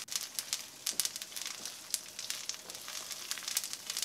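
Cod roe frying in hot oil with onions and spices in a pan: a steady sizzle with many small, sharp crackles.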